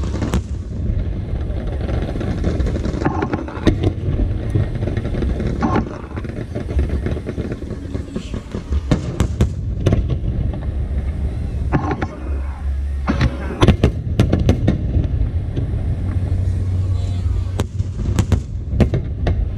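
Aerial fireworks bursting overhead: a continuous low rumble of booms with many sharp cracks, clustered most densely about halfway through and again near the end.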